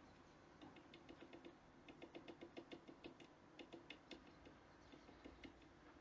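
Great tit pecking at the wooden feeder perch: a run of quick, sharp taps, several a second, coming in bursts with short pauses between them.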